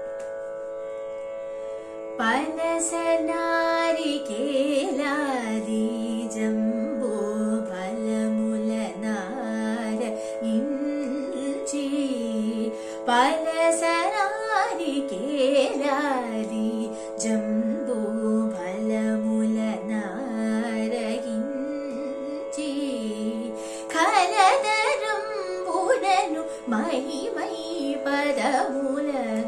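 A woman singing a Carnatic devotional song over a steady tanpura drone. The drone sounds alone at first, and her voice comes in about two seconds in with gliding, ornamented phrases.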